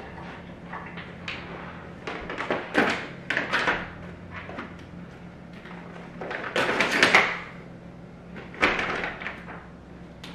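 Plastic pouch crinkling and rustling in several bursts as it is handled and pulled open, loudest about two-thirds of the way through, over a faint steady low hum.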